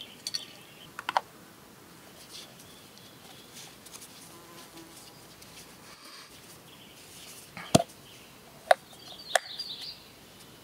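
Light clicks and clinks of a metal camp pot and mug being handled in the first second or so, then a faint buzz, then three sharp clicks about a second apart near the end.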